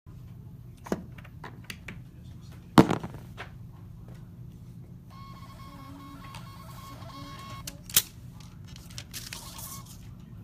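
Knocks and clatter of cardboard trading-card boxes handled on a glass display counter, the loudest about three seconds in and another near eight seconds, with lighter clicks between, over a low steady hum. A steady tone with overtones comes in about halfway through.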